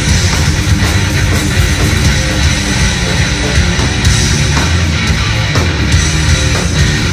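Heavy metal band playing live: distorted electric guitars, bass and drums, loud and dense.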